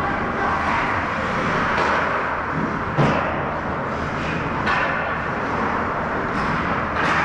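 Ice hockey game sound in a rink: a steady wash of skating and arena noise, broken by a few sharp knocks, the loudest about three seconds in and others near five seconds and near the end.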